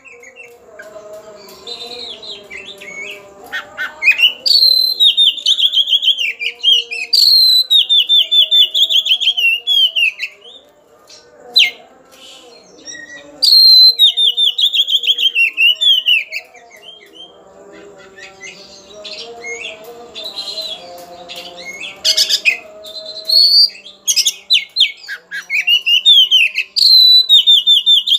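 Oriental magpie-robin singing loud, sharp phrases, each a fast run of falling whistled notes. The phrases come in bursts of two to three seconds with quieter pauses between them. It is the agitated song of a kacer spoiling for a rival.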